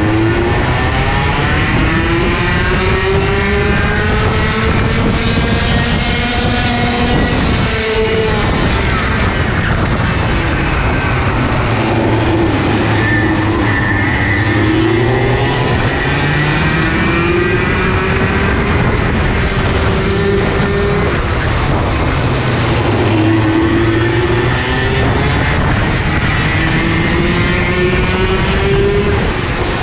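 IAME KA100 100cc two-stroke kart engine heard onboard at racing speed, its pitch climbing in long rises under throttle and dropping back off the throttle into corners, about eight seconds in and again past twenty seconds. The engines of karts running close ahead are mixed in.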